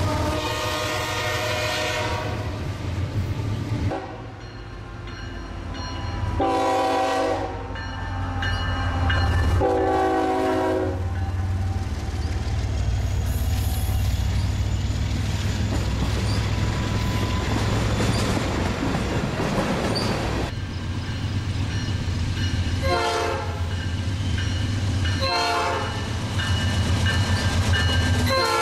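Freight trains rolling past close by with a steady low rumble and wheel clatter, while diesel locomotive air horns sound several blasts: a long one at the start, two more a few seconds later, then short blasts and a long one near the end.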